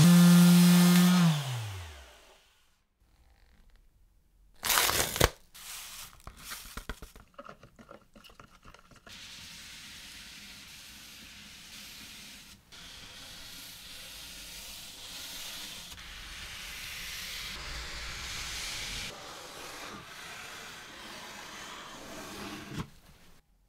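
An electric palm sander on a wooden rail winds down, its motor pitch falling to a stop within the first two seconds. After a pause there is a short loud scrape, then a few scattered clicks. A long steady stretch of cloth rubbing over wood follows as finish is wiped on, stopping just before the end.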